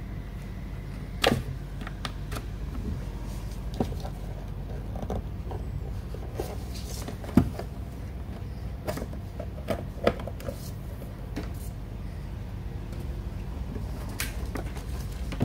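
Scattered light knocks and clicks from handling a laptop and a USB hard-drive dock on a desk, over a steady low hum. The sharpest knocks come a little over a second in and about halfway through.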